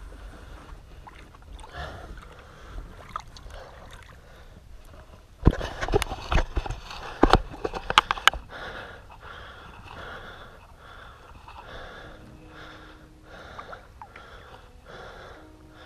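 Water splashing and knocking against the side of a boat as a large asp is held in the water for release, with a cluster of loud splashes and knocks about a third of the way in. Around them, quiet sloshing water and a person's breathing.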